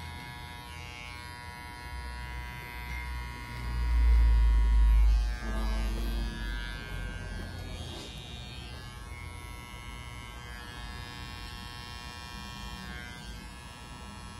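Electric hair trimmer running with a steady buzz as it trims a beard and moustache. About four seconds in there is a loud low rumble lasting just over a second.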